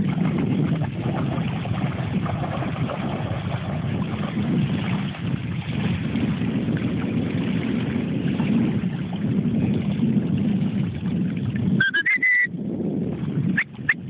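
Steady wind noise rumbling on a phone's microphone. About twelve seconds in there is a short rising whistle, and near the end a few quick high chirps.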